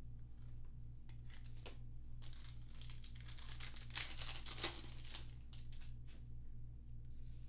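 A trading-card pack's foil wrapper being torn open and crinkled, loudest about four seconds in, after a few light clicks of handling. A steady low electrical hum runs underneath.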